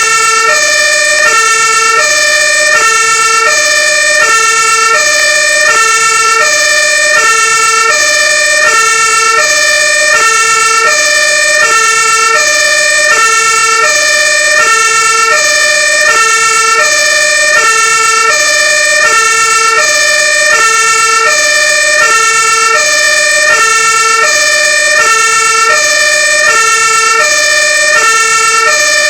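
Fire-engine Martin-horn, a two-tone siren, sounding continuously. It alternates evenly between a low and a high note about a fourth apart, and a steady high tone runs underneath.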